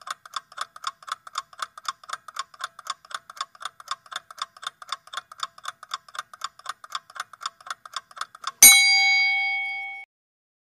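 Countdown-timer sound effect: clock ticking fast and evenly, about five ticks a second, then a bell ding near the end that rings for about a second and a half and cuts off, signalling that the time is up.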